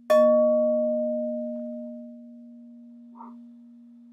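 A singing bowl struck once, ringing out with several tones that fade over a couple of seconds, its main note lingering faintly. A steady low drone carries on underneath.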